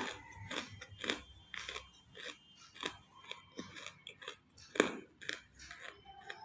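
A person biting and chewing pieces of half-roasted clay, with irregular crisp crunches about twice a second; the loudest crunch comes a little under five seconds in.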